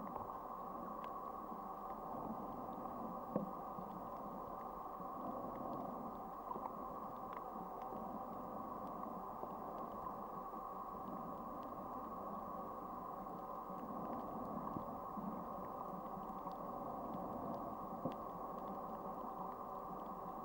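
Steady underwater hum with several held tones, dull with no high end, and faint scattered clicks throughout.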